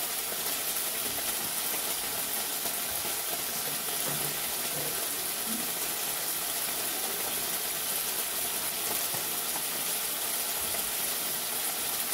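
Spices and ginger paste frying in oil in a wok on a gas burner: a steady, even sizzle.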